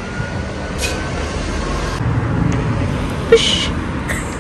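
Steady low rumble of a road vehicle in motion, with a brief hiss just under a second in and a louder short hiss after about three seconds.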